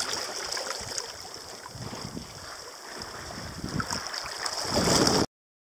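Seawater rushing and splashing past a sailboat's stern-hung rudder and trim tab while under sail, swelling louder near the end and then cutting off suddenly.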